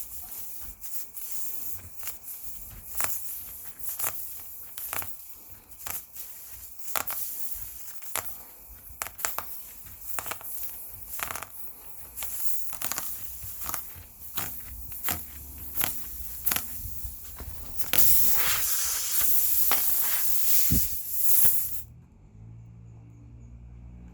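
Repeated sharp clicks and knocks of hand tools working on a punctured car tyre, then a loud hiss for about four seconds that cuts off suddenly.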